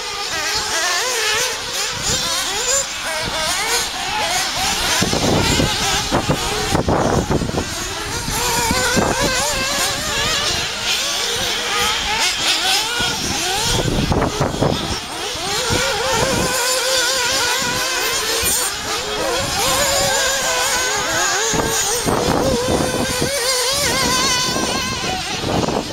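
Several radio-controlled off-road buggies racing, their small motors revving up and easing off over and over, so that several overlapping high pitches keep rising and falling.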